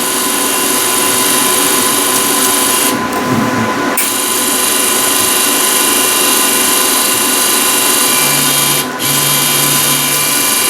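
Lincoln Electric LE31MP wire feed motor running steadily at top speed, whirring as it pushes flux-core welding wire through the MIG gun liner. The upper part of the sound thins for about a second, three seconds in, and dips briefly near the end.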